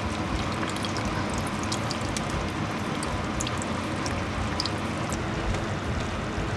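Kimchi juice pouring in a thin stream from a jar into a pan of cream sauce: a steady trickle with scattered faint ticks.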